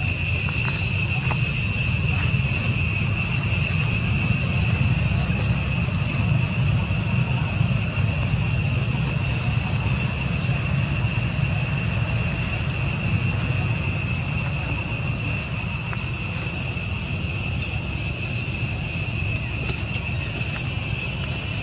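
A steady insect chorus: a high, unbroken whine held at several pitches, over a constant low rumble.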